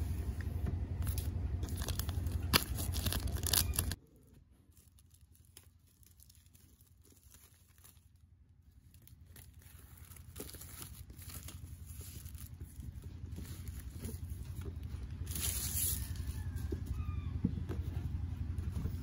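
Packaging on a new laptop box being handled and torn open: crinkling and tearing of the wrap, with small handling knocks. A low steady hum runs under the first few seconds, and a louder rustle of tearing comes near the end.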